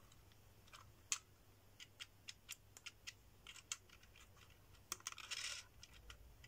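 Faint, scattered small clicks and taps of thin laser-cut wooden pieces as clock hands are pressed onto the hub of a wooden gear mechanism by hand, with a short scrape about five seconds in.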